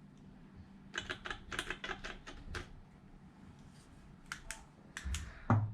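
A quick run of light clicks and taps, like a keyboard, then a few more and a soft knock near the end: small hard plastic parts of an RC truck chassis being handled.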